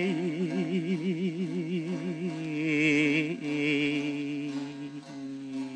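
Turkish folk song: a singer draws out a long 'of' with an even, wide vibrato for about two seconds, then the music carries on in steadier held notes.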